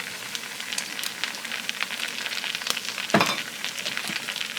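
Flaked chicken frying in hot oil in a pan with oyster sauce just added: a steady sizzle full of small crackles, with one louder scrape or knock about three seconds in.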